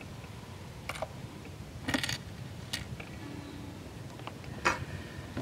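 A handful of small, sharp metal clicks as tweezers tap and slip against the nut and washer of an electric guitar's output jack.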